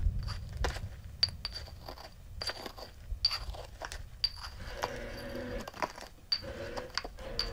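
Small metal objects clinking as they are handled in the hands: about a dozen sharp, separate clinks, each with a brief high ring.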